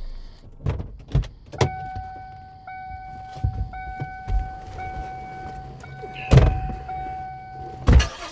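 Car doors and interior: a few knocks as doors open and people get in, then the car's warning chime, a steady tone broken about once a second. Two heavy thumps of doors shutting come near the end, and the chime stops at the second.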